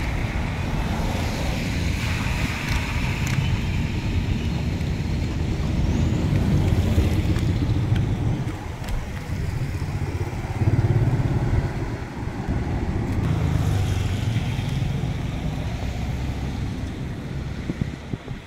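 Passing motor traffic on a flooded road, a motorcycle among it, mixed with wind buffeting the microphone in uneven low rumbles.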